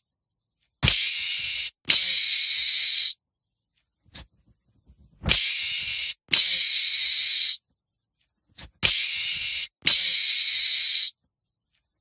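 Meerkat giving harsh hissing calls in three pairs, each call about a second long, starting and stopping abruptly.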